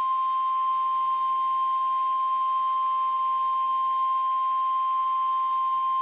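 NOAA Weather Radio 1050 Hz warning alarm tone: a single steady, unbroken electronic tone, the attention signal that marks an incoming warning broadcast. Faint receiver hiss lies beneath it.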